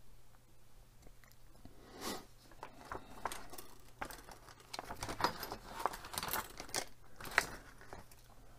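Plastic model-car parts handled by hand: scattered light clicks, taps and rustling, busier in the second half with one sharper click near the end.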